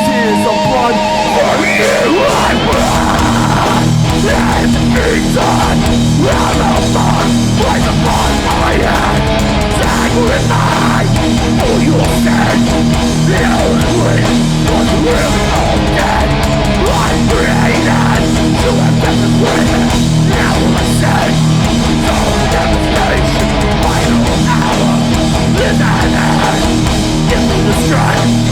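A hardcore metal band playing live and loud, with heavy distorted guitars, bass and drums.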